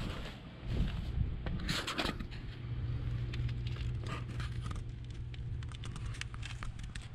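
2012 Honda CBR1000RR's inline-four engine idling steadily through its carbon-fibre slip-on muffler. Some rustling handling noise comes first, and the steady idle holds from about two seconds in.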